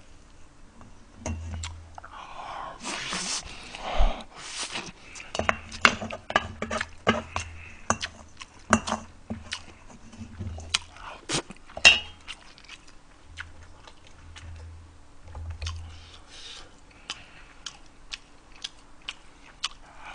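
Close-miked chewing and mouth sounds of a man eating braised beef short rib, with scattered sharp clicks and clinks of a wooden spoon and chopsticks against a stainless steel bowl. The loudest clicks come about 4 and 12 seconds in.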